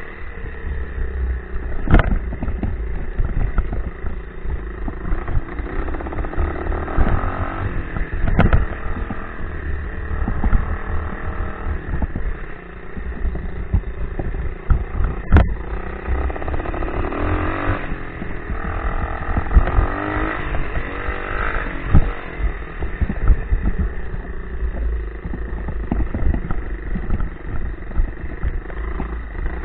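A 90cc Baja dirt bike's small engine running as it is ridden, revving up and down with the throttle. Sharp knocks come every several seconds as the bike jolts over rough ground.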